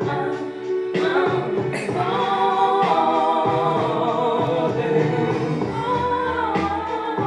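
Music: a song with voices singing held, wavering notes.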